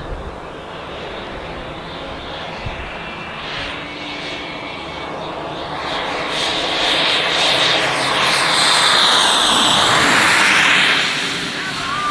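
JetCat P220 RXI model jet turbine on a large RC jet, a steady rushing whine that grows louder from about halfway as the jet comes in fast and low. It peaks near the end in a fly-by, its pitch dropping as it passes.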